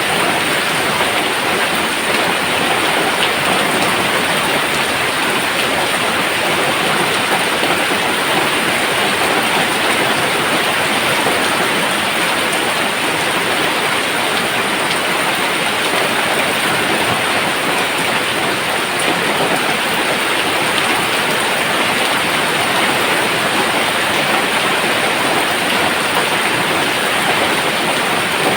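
Steady rain pouring down: an even, unbroken hiss with no thunder.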